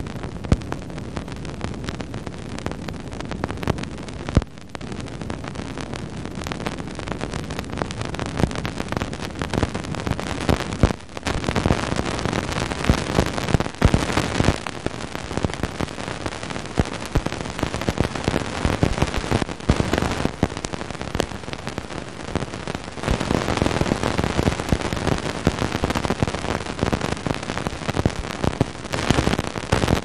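Cassini Radio and Plasma Wave Science recording turned into audio: a dense crackle of dust grains striking the spacecraft as it crosses Saturn's faint Janus–Epimetheus ring, each impact vaporizing into a tiny cloud of plasma. The crackle thickens about twelve seconds in and again for the last third.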